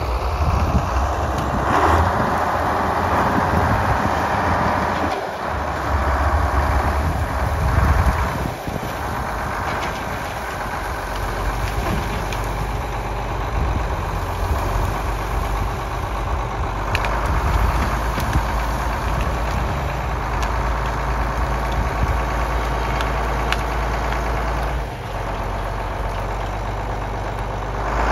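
John Deere loader tractor's engine running as it drives and works its grapple. The engine swells and eases several times in the first eight seconds, then runs steadier, with a short dip near the end.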